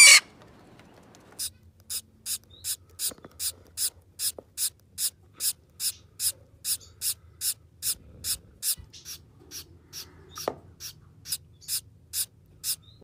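A galah's short screech at the very start, then a long, even run of short raspy hisses, about two and a half a second: Gouldian finch nestlings begging in the nest.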